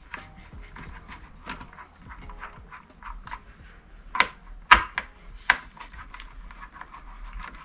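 Small clicks and taps of a screwdriver working the CPU cooler's mounting screws, with three sharper knocks about four to five and a half seconds in.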